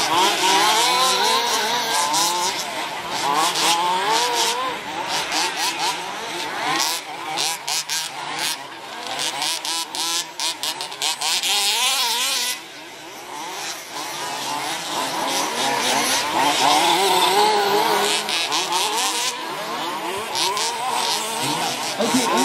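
Several radio-controlled off-road race buggies running together, their small engines revving up and down in overlapping pitches. There is a brief lull about halfway through.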